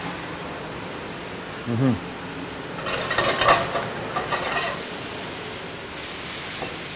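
Scallops searing in a very hot pan: a steady sizzle, with scraping and clattering as they are stirred and tossed in the pan from about three to four and a half seconds in.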